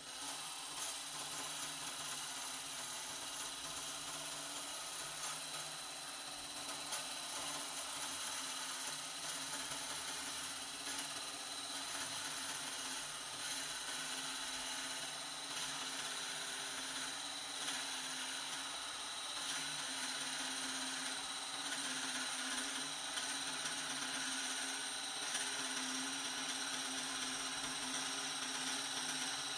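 Power drill turning a hole saw cutting into wood: a steady motor whine with the saw teeth grinding, starting up abruptly and running at an even pace.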